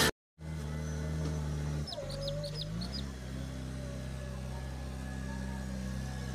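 JCB 3DX backhoe loader's diesel engine running steadily, its pitch stepping up a little about two and a half seconds in as the revs rise. A bird calls briefly around two seconds in with a few short high chirps.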